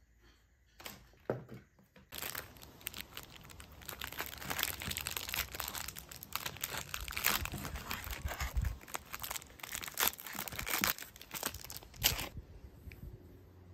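Plastic wrapper crinkling and tearing as an ice cream sandwich is unwrapped by hand: a dense run of crackles from about two seconds in until shortly before the end, stopping abruptly. A few light knocks come before it.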